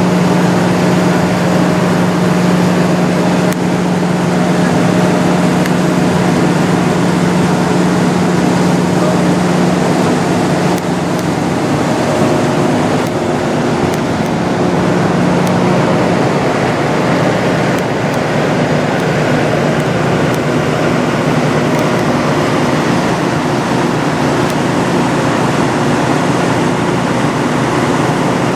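Kenworth semi truck's diesel engine idling steadily, a low even hum that does not change.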